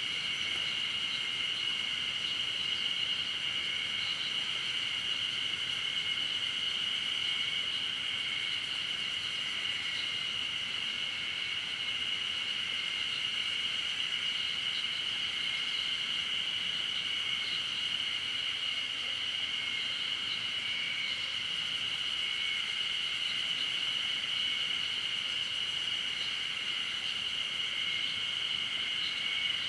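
A chorus of insects singing in a steady, high-pitched drone, with fainter flickering chirps just above and below the main pitch, over a light hiss of forest ambience.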